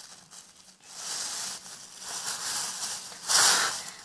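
Plastic refrigerator bag rustling and crinkling as it is handled, with a louder rustle near the end.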